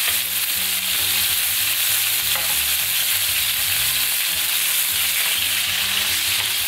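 Venison steaks searing in a very hot pan with butter melting in the fat around them: a steady, even sizzle.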